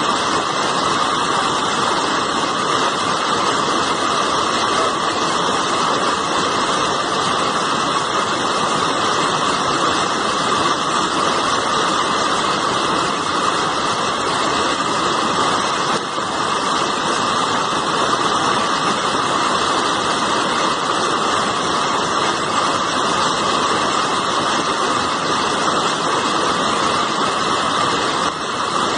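Fast, turbulent floodwater rushing in a steady, unbroken roar.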